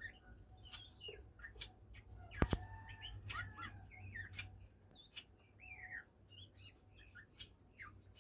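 Oriental magpie-robin calling and singing in short chirps and slurred, gliding whistled notes, a bird just starting to sing. A single sharp knock about two and a half seconds in.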